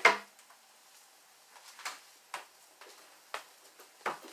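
Scattered clicks and knocks of someone fetching paper plates in a kitchen, sharpest right at the start, then several lighter ones.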